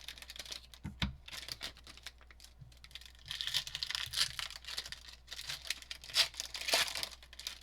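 Foil trading-card pack wrappers tearing and crinkling as packs are opened by hand, in a string of irregular scratchy rips, with a soft knock about a second in.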